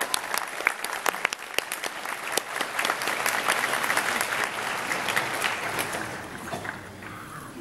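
Audience applauding: dense clapping that thins out and fades away over the last couple of seconds.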